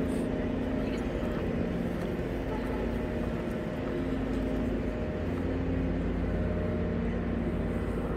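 A motor running steadily: a low drone with a constant hum, with no change in speed.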